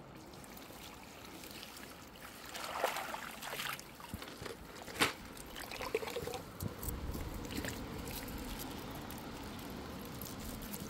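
Water splashing as a dip net full of small fish is drawn out of a shallow stream, then water trickling and dripping out through the wet mesh over the stream's steady running. One sharp knock about five seconds in.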